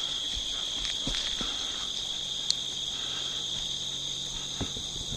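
Insects, crickets, chirring steadily in the field, a high continuous buzz with a few faint clicks and rustles over it.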